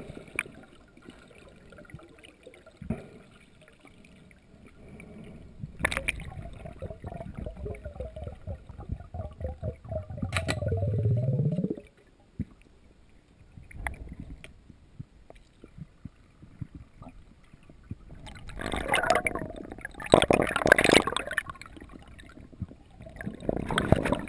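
Muffled underwater sound picked up by a camera in the water: water gurgling and bubbling, swelling in the middle and rushing louder in the last few seconds.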